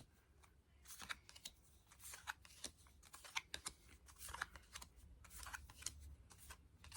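Faint, irregular clicks and light rustling of Yu-Gi-Oh trading cards being handled and flipped through one by one.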